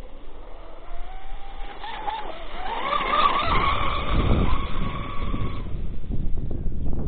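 An RC catamaran's SSS 3674 brushless motor, running on 6S, whines and climbs steadily in pitch over about three seconds as the boat speeds up. It is loudest a few seconds in, and the whine drops away about a second before the end. A low rumbling noise comes in about halfway and continues.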